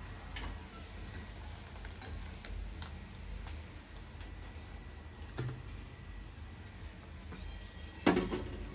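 Deep-frying oil in a steel kadai crackling with faint scattered ticks as bondas are lifted out with a wire strainer. A short metal knock comes about five seconds in and a louder clank near the end.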